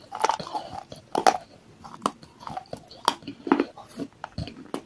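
Close-miked mouth chewing and crunching a mouthful of baked clay and white chalk paste, with sharp crunches about once a second.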